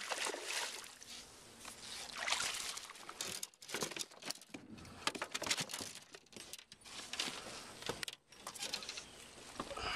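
Hooked bass splashing and thrashing at the water's surface, followed by dripping water and a run of short clicks and knocks as the fish is brought into the boat.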